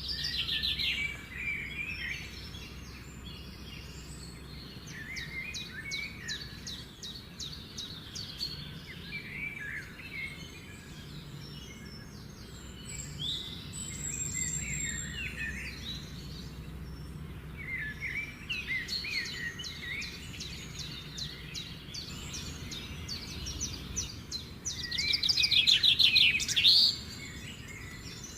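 Birds chirping and singing, with short chirps and bursts of rapid trilled notes; the loudest, fastest trill comes near the end.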